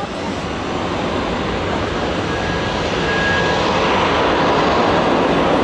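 Jet aircraft engines running, a dense roar that grows steadily louder.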